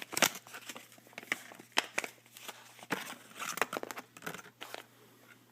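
Crinkling and rustling of a small packet being handled, with irregular light clicks and taps, loudest at the start and thinning out toward the end; it is the packet holding the revolver's test-fire spent case.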